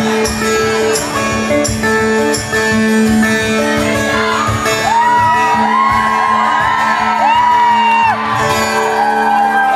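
Live band with guitar playing the closing bars of a song over the PA. From about halfway, high shouts and whoops from the audience rise over the music.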